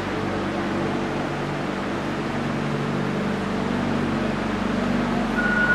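Steady hum and hiss of a Renfe Cercanías electric commuter train standing at an underground platform, its air-conditioning and auxiliary equipment running, with a few low steady tones. A steady high tone starts near the end.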